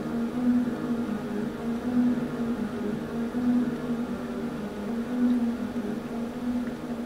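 A steady low machine hum that swells about every second and a half.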